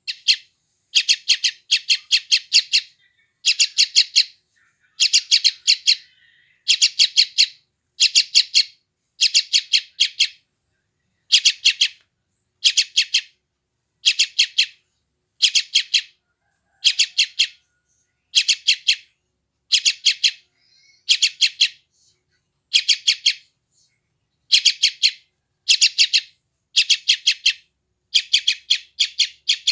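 Yellow-vented bulbul (trucukan) chick giving hungry begging calls: short bursts of four to six quick, high chirps, repeated about every second and a half.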